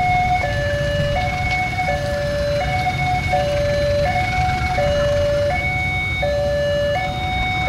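Electronic level-crossing warning alarm sounding a steady two-tone hi-lo signal, each tone held about three-quarters of a second, warning that a train is coming.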